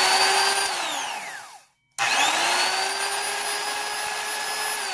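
Porter-Cable oil-filled worm-drive trim saw running free with no load, a smooth steady whine. About a second in the motor winds down with a falling pitch and stops. Just before 2 seconds it starts up again and runs steady, then starts to wind down near the end.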